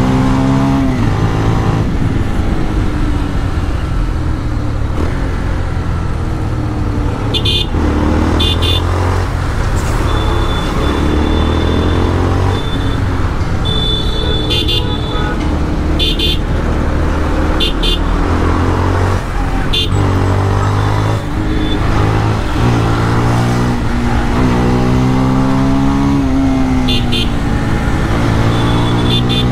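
Motorcycle with a modified exhaust running on the road, its engine note climbing as it accelerates and dropping back at each gear change. Short horn honks sound several times in the middle and again near the end.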